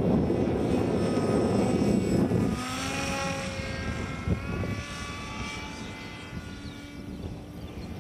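Small rear-mounted electric motor and propeller of an EPP foam RC model plane whining overhead, several tones drifting slightly in pitch and fading as the plane moves away. Wind buffets the microphone as a low rush for the first couple of seconds, and there is one short knock about four seconds in.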